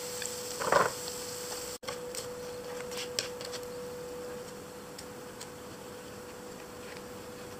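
Light clicks and taps of a plastic spatula and wooden chopsticks against a nonstick frying pan and a plate as pan-fried corn cakes are lifted out, with a brief louder sound about a second in. A steady faint hum runs underneath.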